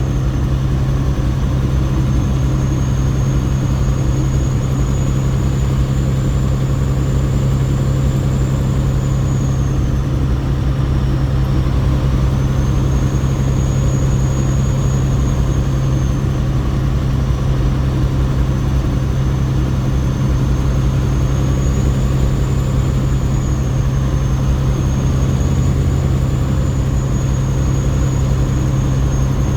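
Semi truck's diesel engine running at a steady low hum, with a thin high whine that drifts slowly up and down in pitch.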